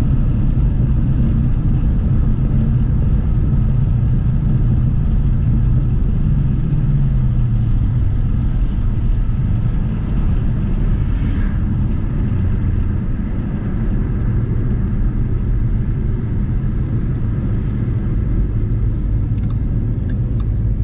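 Car engine running steadily, its pitch easing down a little about six seconds in and then holding.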